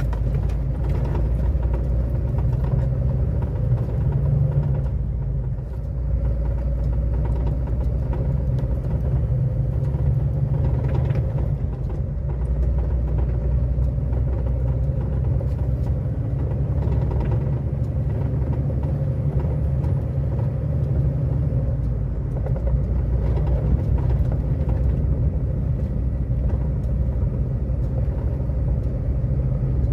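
A motor vehicle driving on a muddy dirt road, with a steady low engine and road rumble and a faint steady hum above it.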